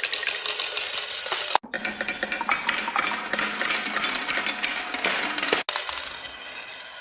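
Marbles rolling and clattering down a toy marble run: a dense stream of quick clicks and rattles. The sound breaks off abruptly twice, about a second and a half in and again near the end, and resumes with a different clatter each time.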